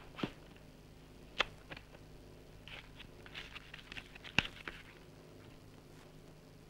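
Quiet room tone on an old film soundtrack: a faint steady hum with a few sharp clicks, the loudest about a second and a half and four and a half seconds in, and bits of soft rustling in between.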